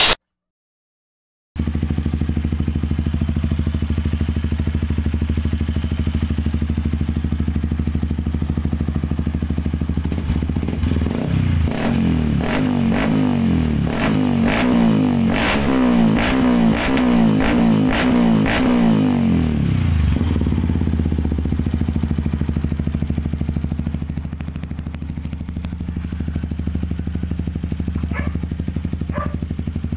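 Yamaha WR155's 155 cc single-cylinder engine running through a Norifumi aftermarket exhaust. After a second or so of silence it idles steadily, is blipped repeatedly for about ten seconds in the middle with crackles between revs, then settles back to idle.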